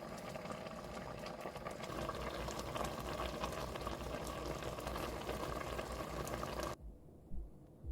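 Braised kimchi with pork bubbling in a pot at a simmer, a dense crackle of small popping bubbles. It stops suddenly near the end.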